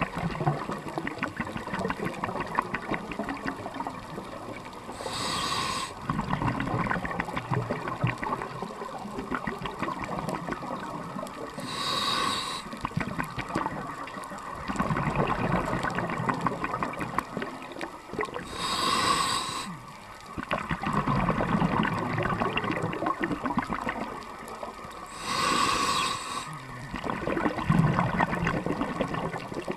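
Scuba regulator breathing heard underwater, in four breath cycles about six and a half seconds apart. Each breath is a short hiss of about a second as air is drawn through the demand valve, then a longer low rush of exhaled bubbles, over a steady faint crackle.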